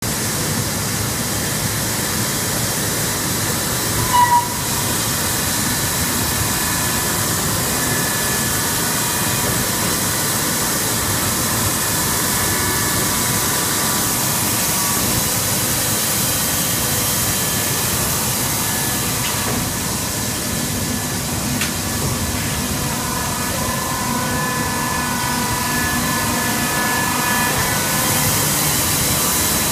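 Plastic film shredder and pelletizing granulator line running: a steady mechanical noise with a hiss and faint high whining tones, and a brief squeal about four seconds in.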